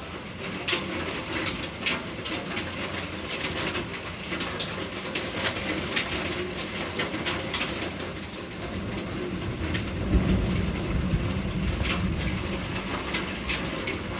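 Pea-sized hail and rain coming down, a steady hiss with many sharp clicks of hailstones striking surfaces. A low rumble swells about nine seconds in and lasts a few seconds.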